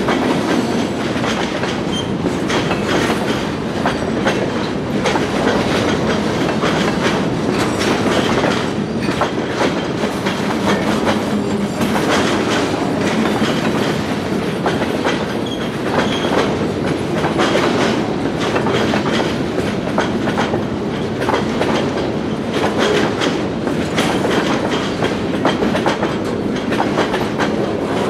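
Freight train cars rolling past steadily, their steel wheels clicking over the rail joints again and again.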